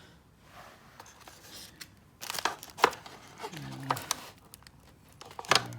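Rustling and sharp clicks of a plastic car-door speaker and its mounting bracket being handled and test-fitted, the clicks clustered from about two seconds in.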